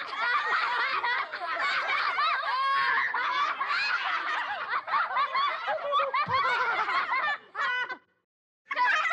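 A group of children laughing together, many voices overlapping; it breaks off briefly near the end and starts again.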